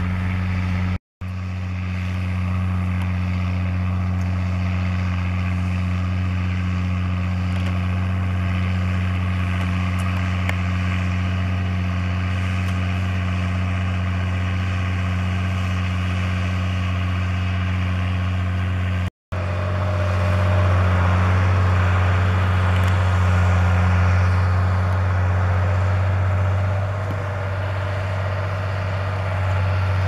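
Green-and-yellow John Deere-style diesel tractor engine running steadily under load as it pulls a plough, a low even drone. The sound cuts out for an instant twice, about a second in and again past the middle. After the second cut it is a little louder, with more hiss.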